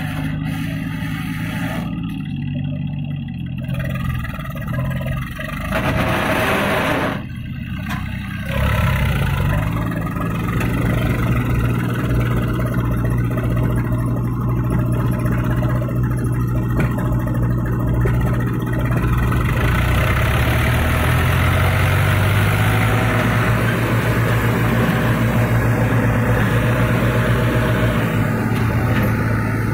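Eicher 380 tractor's diesel engine working under load, pulling a trailer loaded with soil over soft ground. It eases off twice in the first several seconds, revs up about eight seconds in, climbs again around twenty seconds, and then runs steadily at high revs.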